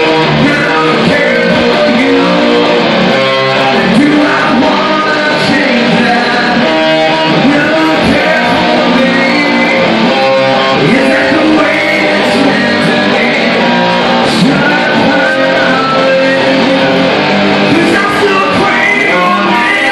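A small rock band playing live, with two electric guitars, lead and rhythm, and a singer on a microphone.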